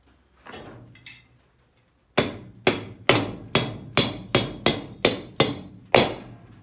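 About ten sharp hammer blows, two to three a second, each with a short metallic ring, as a wheel is driven onto a wagon axle.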